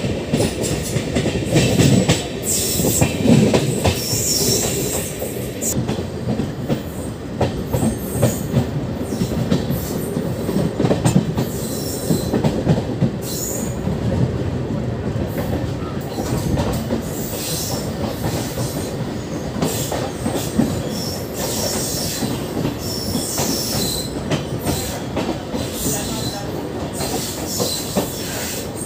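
Train wheels running on the rails: a steady low rumble with clattering and high wheel squeal that comes and goes.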